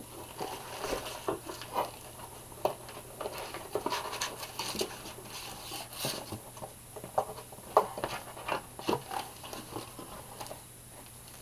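Cardboard box being opened and its contents handled by hand: irregular scrapes, taps and rustles of the lid and the plastic-bagged comics inside.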